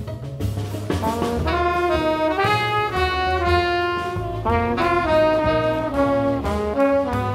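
Live jazz band: trumpet and tenor saxophone playing a melody of held notes together over upright bass and drums, with violins, viola and cello behind. The horn line comes in strongly about a second and a half in.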